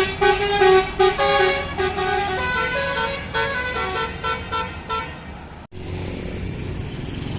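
Tour bus's multi-note 'basuri' telolet horn playing a quick tune, several notes sounding together and changing every fraction of a second. It stops abruptly about five and a half seconds in, leaving a steady low vehicle rumble.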